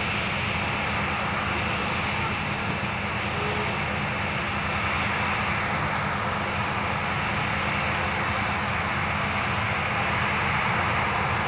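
Boeing 737-800's CFM56-7B jet engines running with a steady, even rush as the airliner rolls along the runway after landing.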